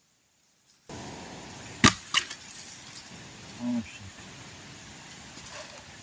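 Two sharp cracks of wood splitting, a third of a second apart, from the cut mango tree's trunk as it gives way, over a steady rush of wind.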